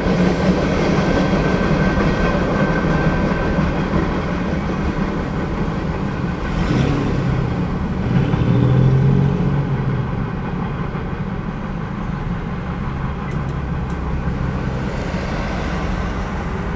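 Rumble of a freight train moving away from a grade crossing just after its last car has cleared, easing off in the second half. Road cars start up and drive across the tracks near the end.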